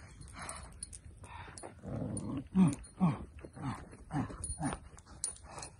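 Puppy growling in short bursts, about two a second from roughly two seconds in, while it bites and tugs at the trainer's forearm bite sleeve.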